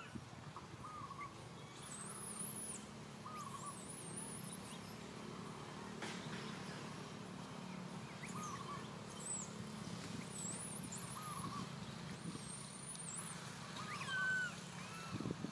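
Young long-tailed macaque crying for its mother: soft short squeaks every second or two, then a louder rising whimper near the end. Small birds chirp thinly and high-pitched in the background.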